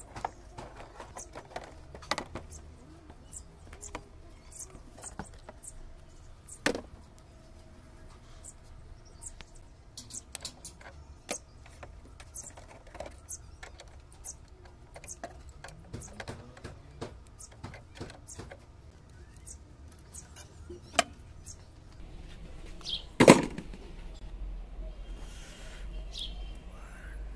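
Scattered light metallic clicks and clinks of a ring spanner working on the terminal bolts of an electric scooter's lead-acid batteries, with one loud knock about 23 seconds in.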